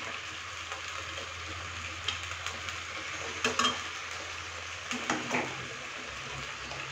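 Marinated chicken pieces sizzling steadily in hot oil in a kadai over high heat while being stir-fried, the spatula scraping and knocking against the pan a few times, about two, three and a half and five seconds in. The marinade's moisture is cooking off as the meat browns.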